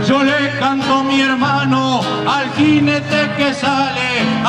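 Criollo folk music: an acoustic guitar playing a steady accompaniment while a man sings verses.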